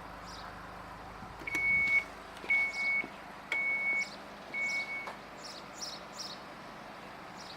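Four evenly spaced electronic warning beeps, one a second, each about half a second long at a single steady high pitch.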